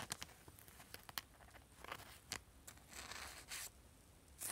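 Trading cards being handled at the table: scattered light clicks and taps, with short crinkly rustles about two seconds in and again around three seconds in.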